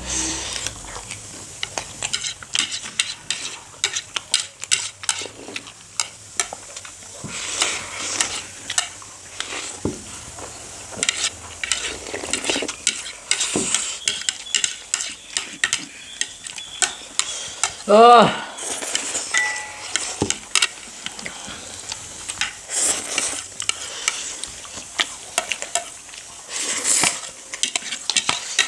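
Noodles and soupy dumplings being eaten: wet slurping and chewing with many small clicks of utensils against bowls, and one short voiced sound about eighteen seconds in.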